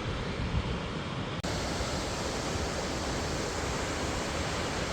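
Running Eagle Falls, a waterfall, making a steady rush of falling water. Wind buffets the microphone until a sudden cut about a second and a half in; after it the rush is steadier and brighter.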